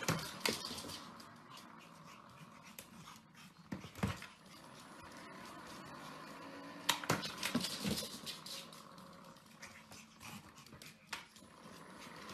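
Sharp clicks and knocks from a Pomeranian playing at an automatic dog ball launcher on a wooden floor: the ball and the launcher's plastic bowl, and the dog's movements. There are about eight of them, loudest in a cluster past the middle.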